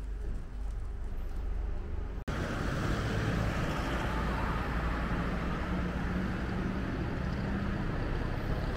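Road traffic on a town street: a steady low hum, then, after an abrupt change about two seconds in, louder, continuous noise of cars going by on the main road.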